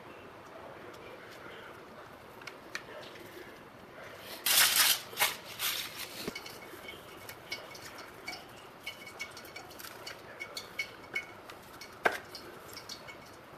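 Fish pan-frying in oil, with scattered small crackles and pops. A short, loud burst of noise comes about four and a half seconds in, and a sharp click comes near the end.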